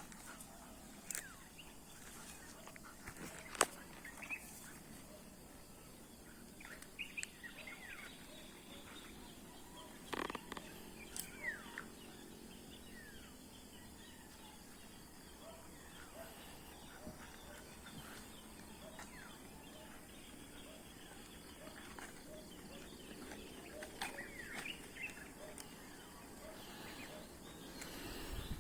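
Faint outdoor ambience with birds chirping now and then over a steady low background noise, and a few sharp clicks or knocks scattered through it.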